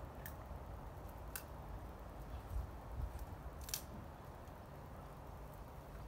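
Faint low background rumble with a few brief, sharp clicks: one near the start, one about a second and a half in, and the loudest a little before halfway.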